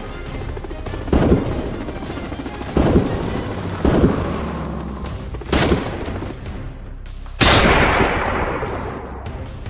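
Five gunshots spaced one to two seconds apart, each followed by a long echoing tail; the last, about seven seconds in, is the loudest. A low music bed runs underneath.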